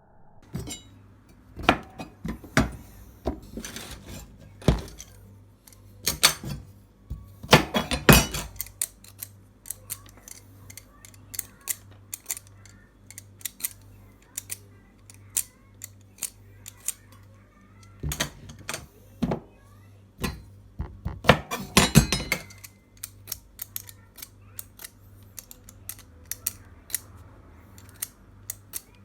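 Irregular sharp clicks and knocks of hands working with kitchen utensils and food, in clusters with brief pauses between them, over quiet background music with a steady low pulse.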